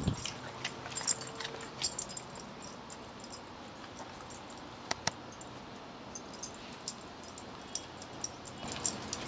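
A greyhound handling and gnawing a raw turkey leg: scattered clicks and ticks, the sharpest about five seconds in, with the jingle of his metal collar tags.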